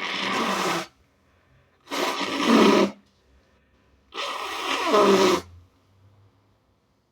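A person who is sick blowing their nose hard three times, each blow a noisy nasal rush lasting about a second, with a brief pause between blows.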